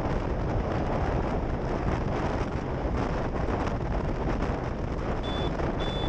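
Steady road and wind noise of a car driving, picked up by a dash-cam microphone. Two short high beeps come near the end.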